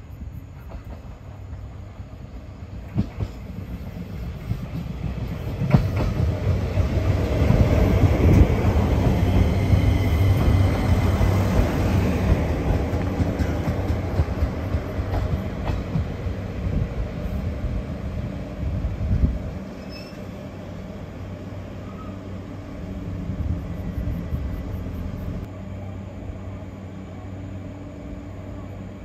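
JR Kyushu YC-1 series diesel-electric hybrid railcar pulling into the station: low rumble and wheel clatter build up, with high brake and wheel squeal as it slows. The loud running drops off abruptly about two-thirds of the way through, leaving a steady lower hum from the standing train.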